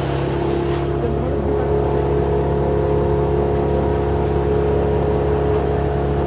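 An engine running steadily at one even speed.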